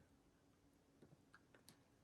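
Near silence: room tone with a handful of faint, brief clicks in the second half.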